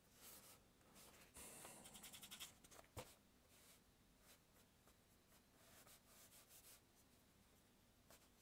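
Faint scratching of a paintbrush stroking acrylic paint onto a painting board, with a quick run of short dabs about two seconds in and a single sharp click about three seconds in.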